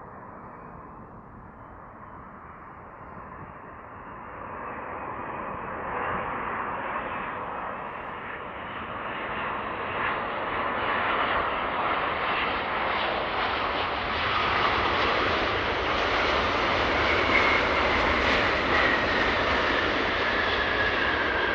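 Large jet airliner on approach to land, its engine noise growing steadily louder as it comes nearer. A high engine whine appears over the last few seconds, sliding slowly down in pitch.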